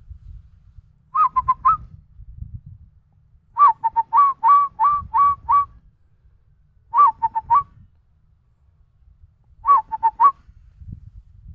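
Human whistling in imitation of a zebra dove's (perkutut) call: four phrases of quick, hooked notes, the second phrase the longest with about eight notes.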